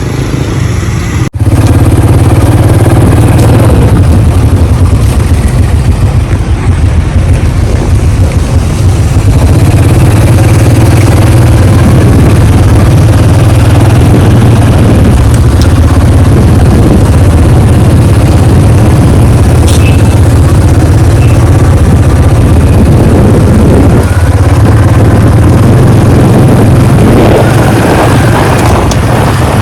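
Riding a motorbike along a road: steady engine and road rumble, with a brief dropout about a second in.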